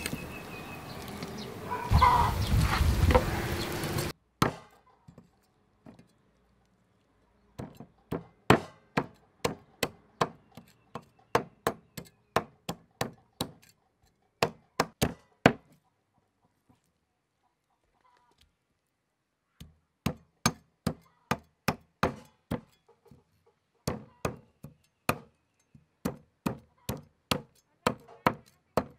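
Cleaver strokes working a snakehead fish on a wooden chopping board: quick sharp knocks, about two a second, in two runs with a pause of a few seconds between them. A few seconds of denser noise come before the strokes.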